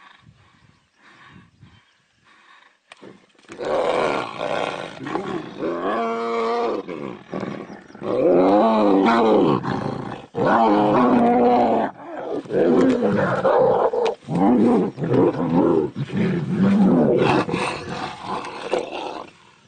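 Tigers growling and roaring while fighting, locked together biting at each other. Quiet for the first few seconds, then loud drawn-out growls in long bouts with short breaks.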